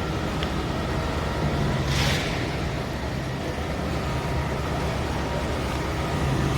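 Steady low rumble of a running engine, with a short hissing whoosh about two seconds in.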